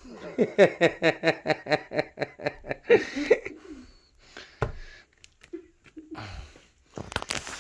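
A person laughing hard in a quick run of ha-ha pulses for about three and a half seconds, then quieter breathy chuckles, with a single sharp knock about halfway through.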